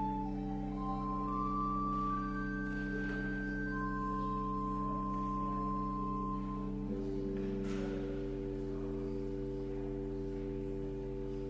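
Church organ playing slow, sustained chords with a high melody of long held single notes above; the chord underneath changes about seven seconds in.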